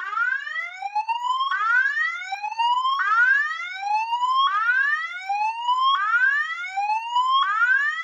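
Fire alarm speaker/strobe sounding a siren-like alert tone: a rising sweep in pitch that cuts off sharply at the top and restarts about every one and a half seconds. This is the evacuation alert tone played between the voice messages.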